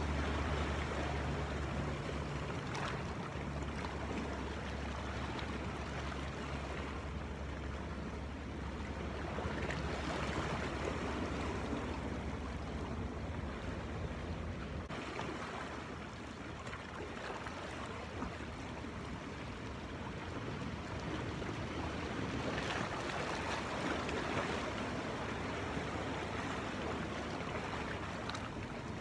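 Sea waves washing and splashing against rocks in slow surges, with wind rumbling on the microphone through the first half.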